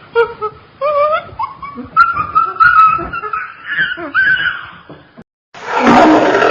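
Fox calling in a run of short, high yips and whining cries that rise and fall in pitch. Near the end a big cat's loud roar begins.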